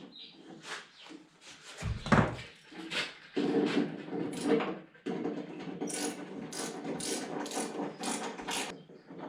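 Ratchet tie-down strap being cranked tight: a regular run of sharp ratchet clicks, about two or three a second, in the second half. Before it come a loud knock about two seconds in and rubbing from the strap being handled.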